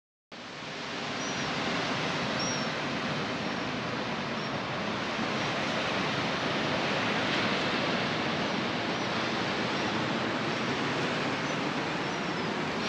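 Steady, even hiss of ocean surf and wind, fading in after a brief silence, with faint short high chirps now and then.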